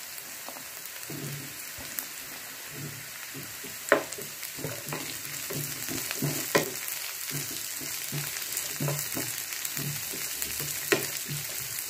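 Chopped onions, green chillies and capsicum sizzling in oil in a nonstick frying pan while a wooden spatula stirs them, scraping and knocking against the pan, with three sharper knocks.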